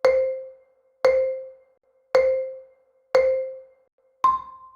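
Countdown timer sound effect: four short, identical mallet-like tones about a second apart, then one higher tone to close the count.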